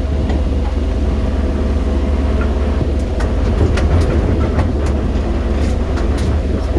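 JCB 215 tracked excavator's diesel engine running with a steady low drone, with scattered clicks and knocks over it.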